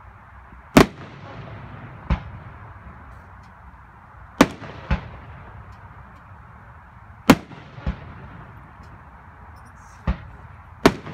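Aerial fireworks shells bursting: sharp bangs every two to three seconds. Each loud bang is followed about half a second later by a fainter one.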